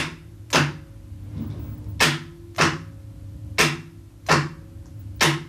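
Starter motor solenoid clacking as it is switched on and off from jumper leads, its plunger pulling in to throw the pinion out and then springing back: sharp metallic clacks in pairs about half a second apart, three pairs and a single clack near the end.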